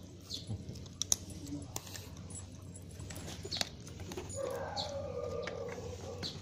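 Metal link chain on a dog's collar clinking in scattered light clicks as the dog moves to its food bowl, with a drawn-out animal cry from about four seconds in to near the end.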